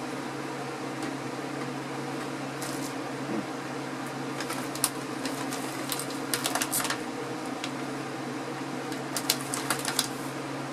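Crinkling of a snack chip bag in a few short bursts, about halfway through and again near the end, as a hand reaches in for pita chips. A steady mechanical hum runs underneath.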